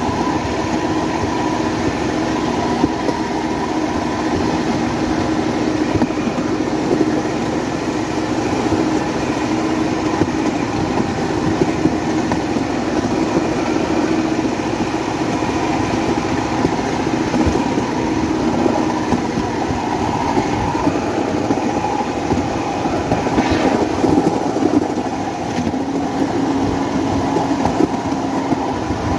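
The motorcycle engine of a motorodillo, a home-built rail car running on rollers, pulling steadily as the car rolls along the railway track, with light clatter from the rails. The engine note drops slightly near the end.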